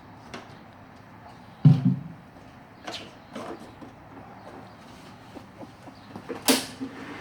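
A few knocks and clicks of something being handled: a dull thump about a second and a half in, lighter clicks around three seconds, and a sharp clatter near the end.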